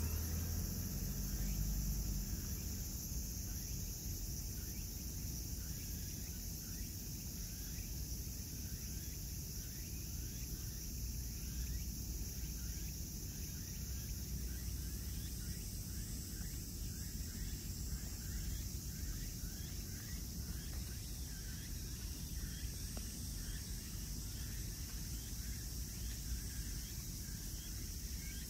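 Steady outdoor ambience: a continuous insect chorus with a low rumble underneath, and from about a third of the way in, many short chirps repeating several times a second.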